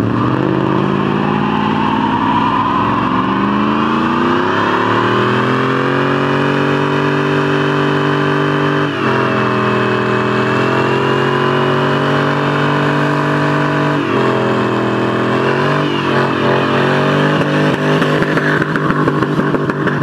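Chevrolet Silverado Z71 pickup doing a burnout: the engine is held at high revs with the rear tyres spinning in place. The pitch climbs over the first few seconds, then drops sharply twice and climbs back as the revs fall and rise.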